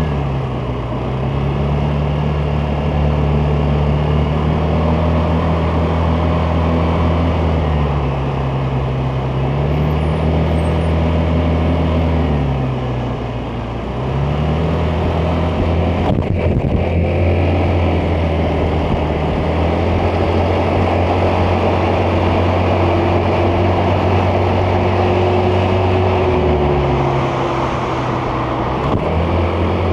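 Vespa GTS 300 scooter's single-cylinder four-stroke engine running under way. Its pitch drops and climbs back several times as the throttle is eased off and opened again. There is a brief knock about halfway through.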